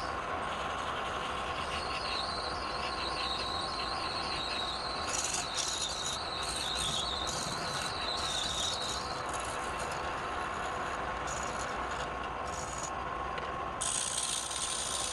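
Wood lathe running with a steady hum, a turning tool scraping against the spinning wood in intermittent bursts, with a wavering high squeal.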